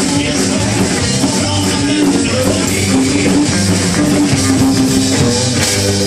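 Live rock band playing: electric guitars over bass and a drum kit, at a steady loud level.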